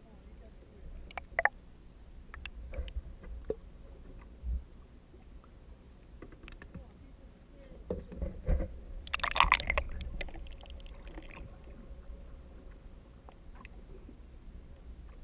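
Underwater sound picked up through a camera housing: a steady low water rumble with scattered clicks and knocks, and a louder crackling, fizzing burst about nine seconds in that lasts about two seconds.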